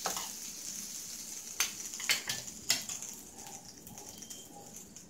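Butter sizzling as it melts on the hot plates of a preheated electric sandwich maker, with a few sharp clicks of a spoon on the plates in the middle; the sizzle slowly dies down.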